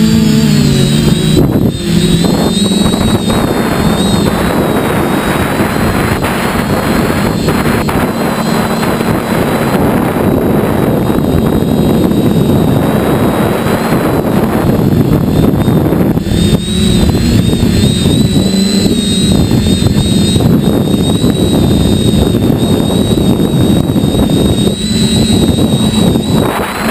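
A model aircraft's motor and propeller running steadily, heard from a camera riding on the aircraft, with a high whine that wavers slightly in pitch and heavy wind rush over the microphone.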